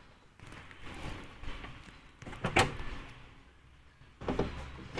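Metal bonnet prop rod being handled and set into its hole under the raised bonnet: light clatter, one sharp click about halfway through, and two knocks near the end.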